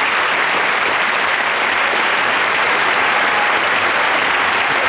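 Television studio audience applauding steadily.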